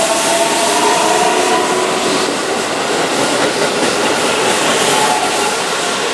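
Keihan 10000 series electric commuter train running past a platform, with a steady rumble and clatter of wheels on rail and a faint whine under it as its cars go by.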